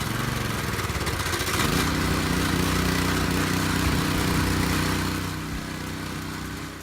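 The Honda 190cc single-cylinder engine on a Simpson 3100 psi pressure washer running. Its pitch wavers for the first second or so, then settles into a steady hum with a broad hiss over it. About five seconds in, the sound drops noticeably quieter.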